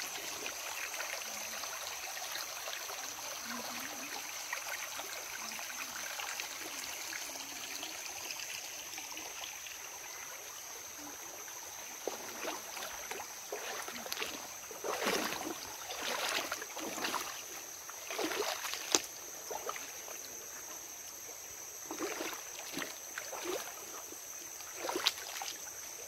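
Shallow jungle stream flowing steadily over rocks. From about halfway on come irregular splashes and scuffs of feet stepping and wading through the shallow streambed.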